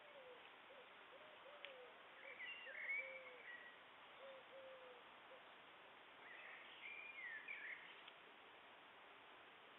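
Faint outdoor wildlife sounds: a run of soft low hooting calls, about two a second, that stops about five seconds in, while a songbird sings two short whistled phrases.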